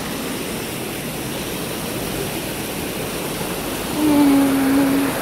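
Shallow river water rushing over rocks and between stepping stones, a steady rush. About four seconds in, a person's voice holds one note for about a second.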